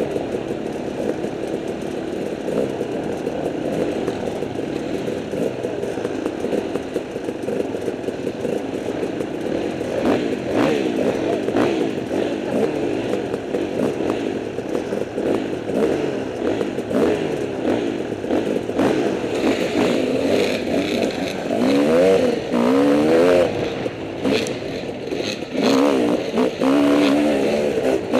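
Several enduro dirt bike engines idling and revving together. A nearby bike revs sharply up and down about two-thirds of the way through and again near the end.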